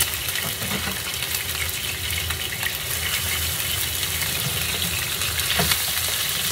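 Halved small hens sizzling in hot olive oil in a frying pan as the pieces are laid in to brown, a steady crackling hiss. A brief knock near the end.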